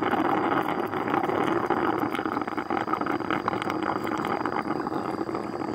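A thin tube worked into the soft resin honey pots of an itama stingless-bee nest, giving a steady, wet crackling noise.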